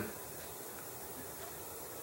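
Steady faint hiss: room tone, with no distinct sound.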